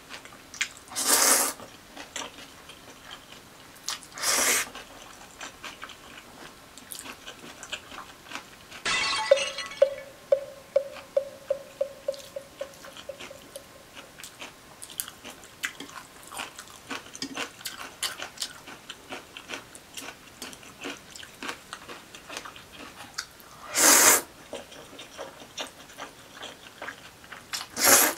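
Close-up eating sounds of spicy cold noodles: four loud slurps of noodles, with wet chewing and small chopstick clicks between them. About nine seconds in, a metal clank rings on as a pulsing tone that fades over several seconds.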